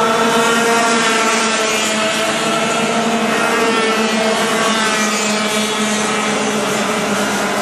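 Several two-stroke racing kart engines running at speed together, their overlapping pitches shifting as the karts pass and carry on round the track.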